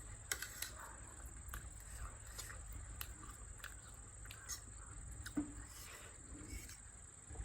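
Faint scattered clicks and taps of someone eating at a table, from chewing and cutlery on the dishes, over a faint steady high tone.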